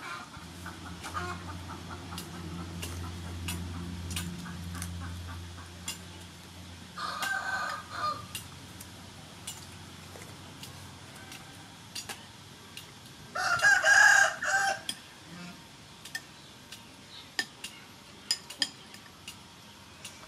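A rooster crowing twice: a shorter crow about seven seconds in, and a longer, louder one around fourteen seconds. Between them come light clinks of a metal spoon against a ceramic soup bowl.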